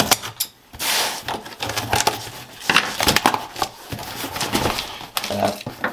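Scissors slicing through packing tape along the seam of a cardboard shipping box, with irregular scraping, rustling and tapping of the cardboard as it is handled.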